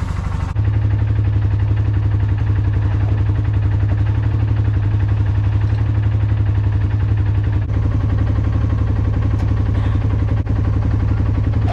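An engine running steadily at idle, growing a little louder about half a second in.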